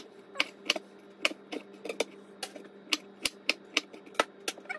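Kitchen knife chopping broccoli on a wooden cutting board: about a dozen sharp knocks, two to three a second, unevenly spaced.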